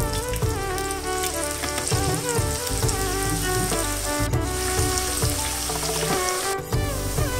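Raw banana slices sizzling as they deep-fry in hot oil; the sizzle sets in just after the slices are dropped in. Background music plays along with it.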